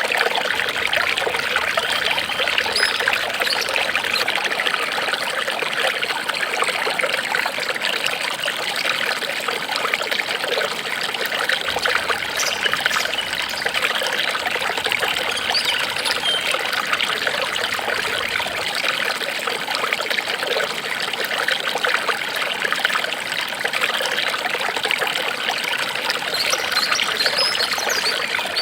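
Water trickling and babbling steadily, like a small stream, with no change in flow.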